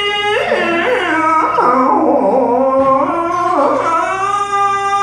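A man's voice chanting one long, wavering melismatic line through a handheld microphone, a comic imitation of Arabic Islamic prayer chanting, its pitch sliding up and down and settling into a long held note near the end.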